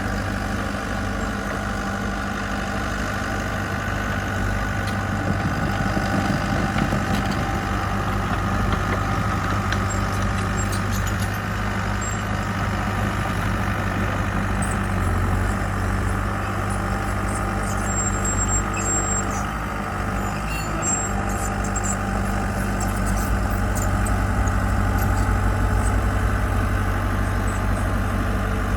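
Heavy diesel engine of construction equipment running steadily, with a constant low hum.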